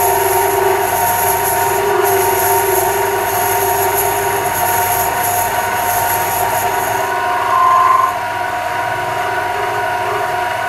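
Chester Conquest bench lathe running under power while taking a heavy cut, a steady motor and gear whine with several constant tones. The high part of the whine drops out about seven seconds in, followed by a brief louder tone. The cut runs smoothly without chatter or jumping.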